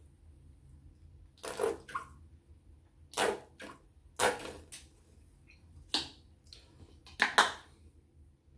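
Plastic squeeze bottle of thick jerk barbecue sauce being squeezed out upside down: six or seven short, sharp squirts of sauce and air, spaced irregularly.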